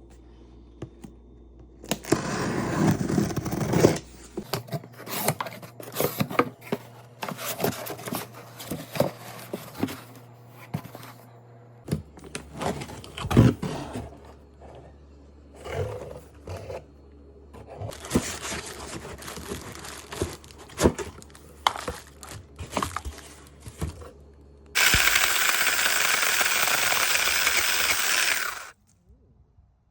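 A small handheld electric mini chainsaw runs in a short burst about two seconds in, then again steadily for about four seconds near the end before cutting off suddenly. In between come scattered clicks, knocks and scraping of handling.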